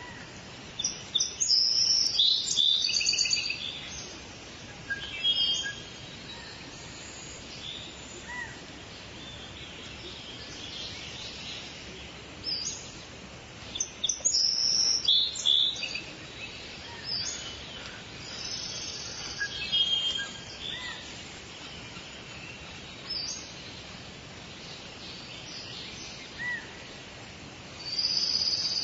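Several songbirds singing and calling over a steady background hiss: bursts of quick high-pitched chirps and trills every few seconds, loudest a second or two in and again about halfway through.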